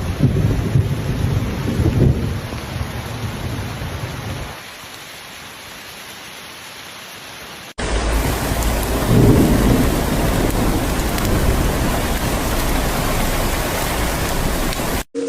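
Heavy rain with thunder rumbling under it. The rumble dies away about four seconds in, leaving a quieter steady hiss of rain. Then an abrupt cut brings in a louder downpour with another roll of thunder.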